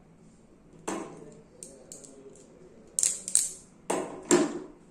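Hand crimping tool crimping a terminal onto a DC power wire, with handling of the tool and wire: a series of sharp mechanical clicks and clacks, the loudest about three and four seconds in.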